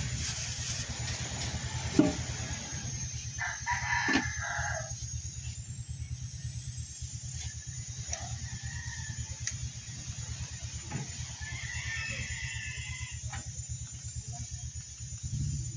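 A rooster crowing twice: one crow about three and a half seconds in and a second, higher-pitched crow about twelve seconds in, each lasting about a second and a half, over a steady low hum.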